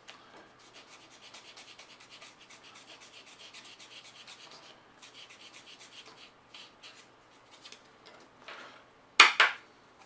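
Fine sanding stick rubbed in quick back-and-forth strokes, several a second, over dried filler putty on a plastic model part, in runs with short pauses. Near the end, two short loud noises close together.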